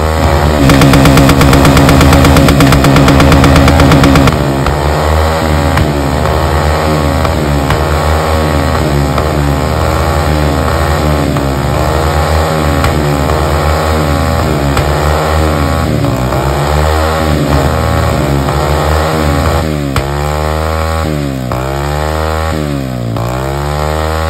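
Honda CBF Stunner's 125 cc single-cylinder engine revving through an exhaust fitted with a spark plug that ignites the unburnt fuel to throw flame from the silencer. It is held high and steady for about four seconds, then revved up and down over and over, about once a second.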